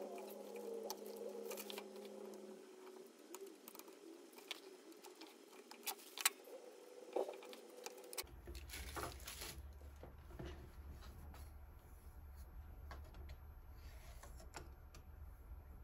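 Quiet handling sounds of double-sided tape being laid and pressed along the metal frame of a touchscreen panel: light rubbing and scratching with scattered clicks, the sharpest about six seconds in. A low steady hum comes in about halfway through.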